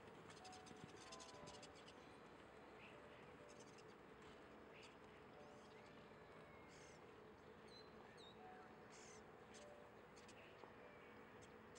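Near silence: faint outdoor ambience with a few scattered, distant bird chirps.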